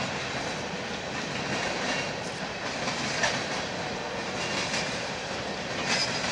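Empty coal cars of a BNSF unit train rolling over a railway bridge: a steady rumble of steel wheels on rail with sharp clicks over the rail joints, loudest about three seconds in and again near the end.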